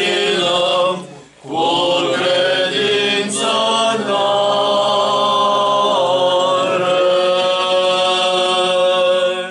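Orthodox church chant: voices singing long, held notes, with a short break about a second in; the singing stops at the end.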